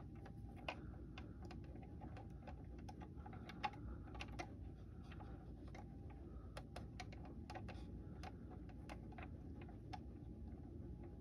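Faint, irregular clicks and taps of small plastic model-kit parts being handled at the workbench, over a low steady hum.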